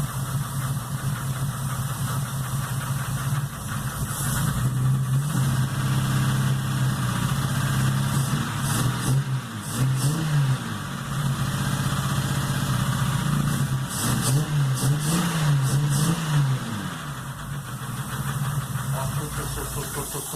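Chevrolet Opala engine running cold with a heavy knock, revved up and down a few times. The knock began after a bad overheat; the owner suspects piston skirt damage and will check the bearings.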